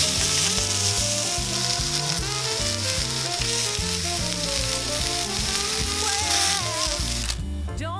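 Sausages, potato wedges and asparagus sizzling in a Turk iron frying pan, over background music with a stepping melody. The sizzle cuts off suddenly near the end, leaving only the music.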